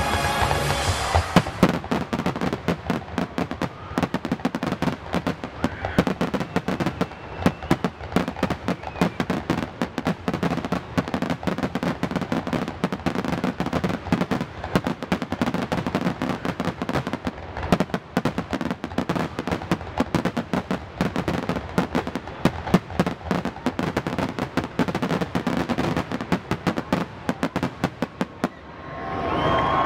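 Fireworks going off in a dense, continuous barrage, many bangs and crackles a second, with no letup until the very end.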